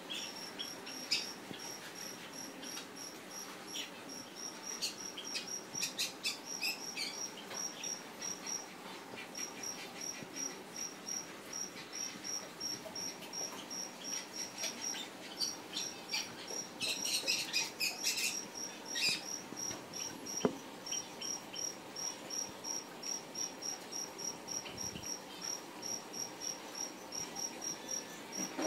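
Cricket chirping steadily in short, evenly spaced high chirps, about three a second. A few brief clusters of sharp clicks and chirps break in, the busiest a little past the middle.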